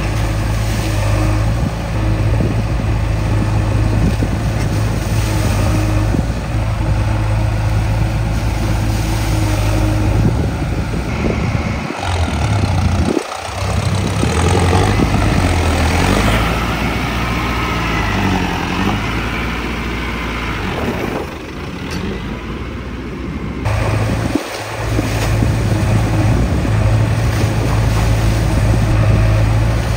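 Diesel tractor engine running steadily, a low drone that cuts abruptly between clips several times. A busier, noisier stretch comes in the middle.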